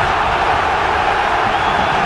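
A large stadium crowd of football supporters chanting and singing together, a loud, steady wall of crowd sound with no breaks.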